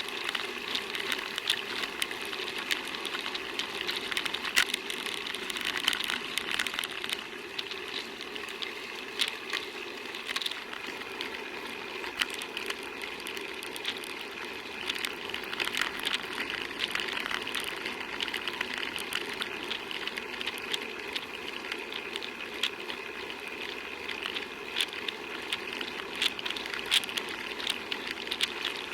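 Bicycle on the move: steady road noise with frequent small clicks and rattles.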